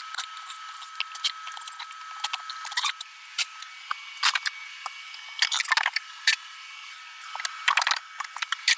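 Irregular clicks, rattles and knocks of hand demolition work: tools and loose panels or debris being handled, with a thin steady high whine underneath and a few louder clatters in the second half.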